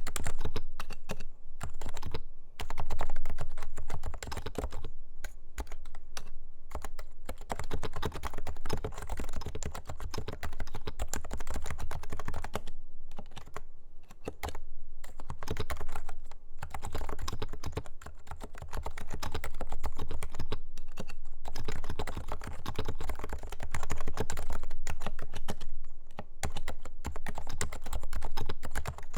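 Continuous typing on a Leopold FC660C Low-Noise keyboard with Topre switches: a rapid run of keystrokes broken by a few brief pauses.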